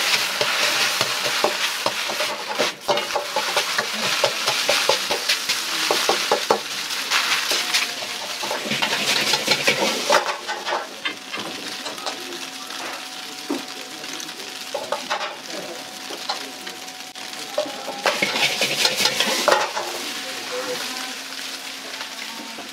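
Egg fried rice sizzling in a wok over a gas burner, with a metal ladle scraping and clacking against the wok as the rice is stirred. The sizzle and clatter ease off for several seconds about midway, then pick up again near the end.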